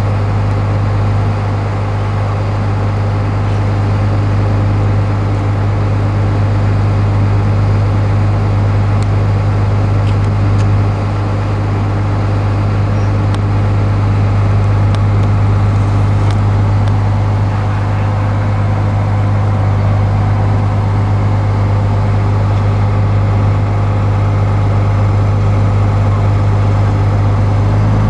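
A large engine running steadily at idle, a deep constant hum that holds the same pitch throughout, with a few faint ticks in the middle.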